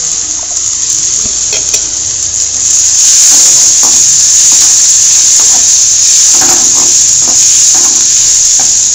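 Chopped onions and garlic sizzling in hot oil in a metal kadai, the sizzle growing louder about three seconds in. A metal ladle scrapes and stirs against the pan in short strokes.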